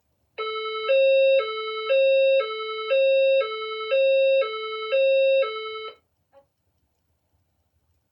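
Fire-alarm speaker strobe (a System Sensor SPSR) sounding a hi-lo alert tone: two pitches alternating about every half second, about eleven tones in all, stopping about six seconds in. This is the alert signal that goes before the voice message reporting an event in the building.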